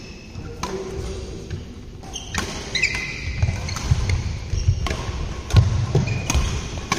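Badminton doubles rally: rackets smack the shuttlecock with sharp hits about once a second. Between hits, shoes squeak briefly and feet thud on the court floor.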